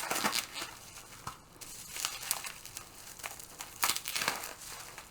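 Packing material crinkling and rustling as it is handled during unpacking, in irregular crackly bursts, louder just after the start and again about four seconds in.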